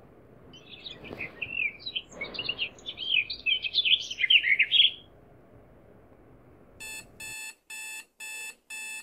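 Birds chirping and warbling in quick runs for a few seconds. About seven seconds in, a mobile phone alarm starts beeping in an even, rapid series, a little over two beeps a second.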